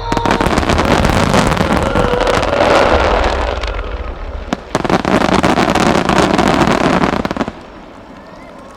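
Fireworks finale: many shells bursting together in a dense barrage of bangs and crackling with a low booming rumble, dipping briefly about halfway and then stopping abruptly about seven and a half seconds in.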